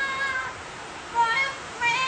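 A parrot calling in drawn-out, high pitched notes that sound like singing or a mimicked meow: one note ends about half a second in, a short one follows past a second in, and another begins near the end.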